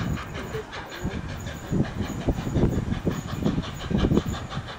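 Steam-hauled train behind Tornado, a Peppercorn A1 Pacific steam locomotive, passing while it works hard up a steep bank. Heavy, uneven low beats come two or three a second, over a steady hiss and the clatter of the passing coaches.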